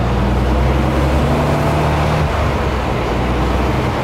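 Cummins X15N natural gas engine of a Peterbilt 579 running as the truck drives slowly, heard from inside the cab: a steady, diesel-like low engine note that changes pitch about two seconds in.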